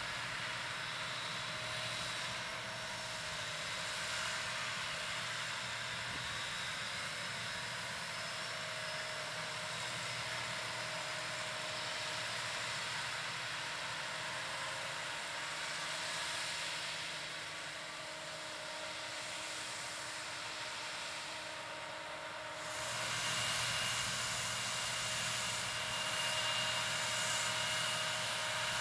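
New Holland T7.290 tractor's six-cylinder diesel engine running steadily under load while pulling a Horsch Serto 12 SC seed drill, with a steady whine over the engine hum. About 23 seconds in the sound gets louder and a higher whine comes in.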